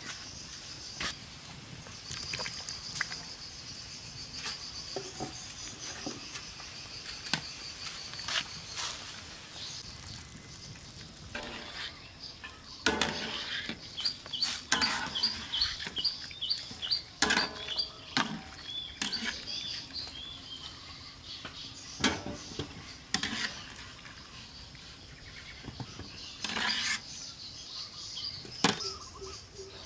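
Scattered clinks and knocks of a wire skimmer and metal tray against a large metal wok, over a steady high insect drone. A bird chirps a quick run of notes about halfway through.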